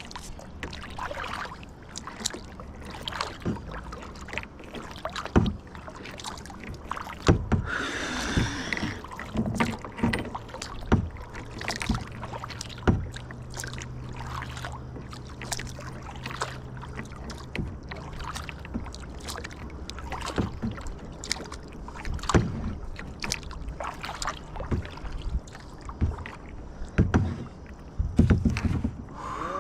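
Kayak being paddled: paddle strokes in the water with many irregular knocks and clicks, paddle and gear bumping the hull.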